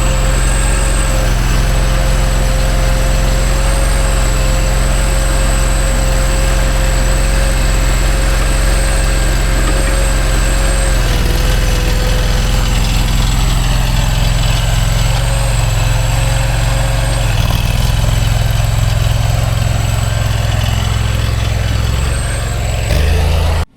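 Engine of a compact earthmoving machine, likely a Kanga mini loader, running steadily at close range with a thin steady whine above it. Its note shifts about halfway through and again a little later, then the sound cuts off abruptly right at the end.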